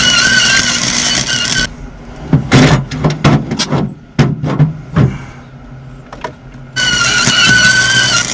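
Wire-feed welder arc: a steady hiss with a wavering high whine, broken off for about five seconds by a string of short sputtering pops over a low hum, then the steady hiss starts again.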